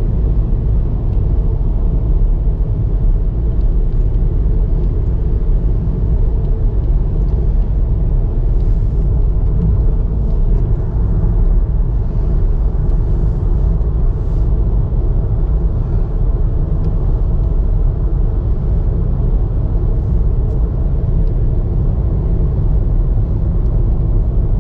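A car driving downhill on a mountain road: a steady low rumble of engine and tyre noise.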